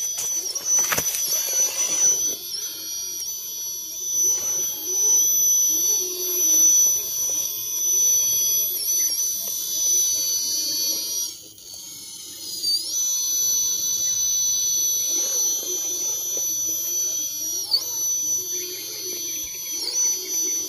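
1/10-scale RC rock crawler's electric motor and geartrain whining steadily as the truck crawls over rocks, the high-pitched whine dipping in pitch a few times as the motor loads up. It stops briefly about halfway through, then resumes.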